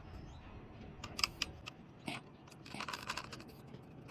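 Small sharp clicks of plastic and metal parts being handled, with a short scraping rasp about three seconds in, as the intercom unit's housing is put back together with its two long screws.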